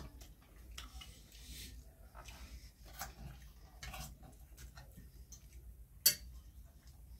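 Eating at the table: scattered light clicks and taps of cutlery on plates, with one sharp, louder click about six seconds in.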